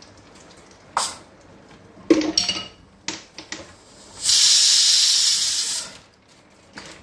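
Pressure cooker letting off a burst of steam: a loud hiss of nearly two seconds, starting a little past the middle. A few light knocks and clatters come before it.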